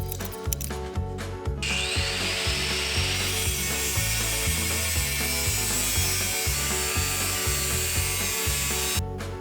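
A handheld power tool spinning up with a rising whine about two seconds in, then running steadily on metal until just before the end, over background music with a steady bass beat; a quick run of ticks comes before it starts.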